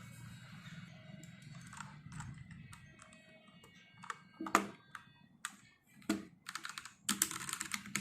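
Keys of an Ant Esports MK1200 mini mechanical keyboard with red linear switches being pressed: a few separate keystrokes, then a quick burst of typing in the last second and a half.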